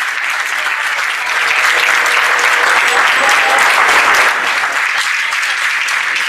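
Crowd applauding: dense, steady clapping that grows louder about a second in and eases a little after about four seconds.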